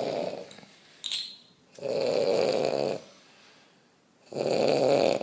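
A man snoring in his sleep: rasping snores about every two and a half seconds, one trailing off at the start, one about two seconds in and another starting near the end.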